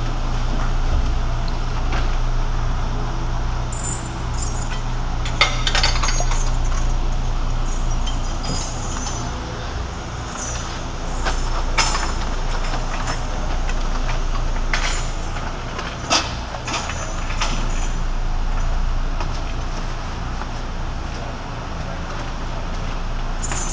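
Steady low hum of factory machinery, with a handful of sharp metallic clinks and clanks as steel chain and bars are handled at a tobacco bale press.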